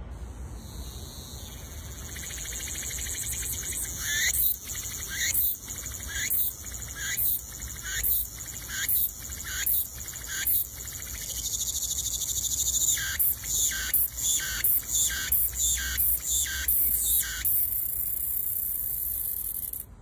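A cicada singing: a steady, high-pitched buzz. From about four seconds in it swells into rhythmic pulses a little over once a second, then after a steady stretch into quicker pulses two to three a second, before stopping abruptly near the end.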